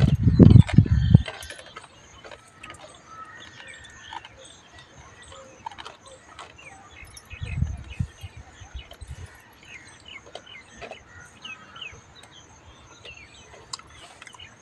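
Outdoor ambience of birds chirping, with a faint steady high insect drone behind them. Two brief low rumbles stand out, one right at the start and one about eight seconds in.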